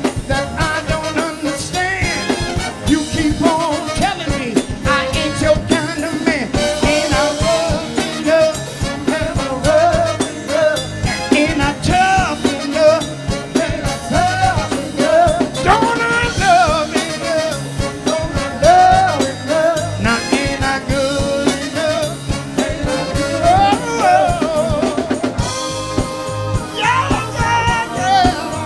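Live band playing a soul-rock song: a male lead singer with backing vocals over a drum kit keeping a steady beat. Near the end the singing gives way to held chords.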